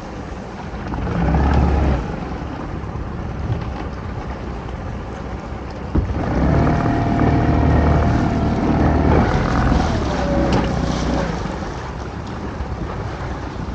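Small fishing boat's engine running, picking up briefly about a second in and again for several seconds from about six seconds in, when a steady whine rises over the rumble. There is a single knock at about six seconds, and wind on the microphone.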